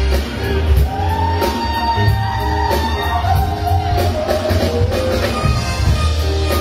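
Live band playing a soul-pop song, with a steady bass and drum groove and long held melody notes over it.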